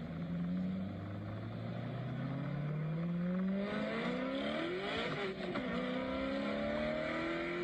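Video-game-style kart engine sound accelerating: a buzzing engine note climbs steadily in pitch for about five seconds, drops sharply just after the five-second mark like a gear change, then climbs again.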